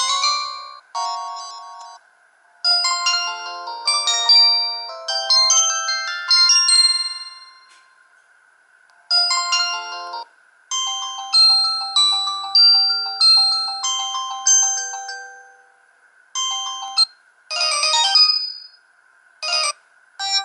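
Samsung GT-E2100 mobile phone ringtones: short electronic polyphonic melodies played one after another, several different tunes in turn with brief pauses between them.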